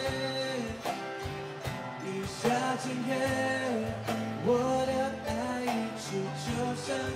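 Background song: a singing voice over instrumental backing with a steady beat.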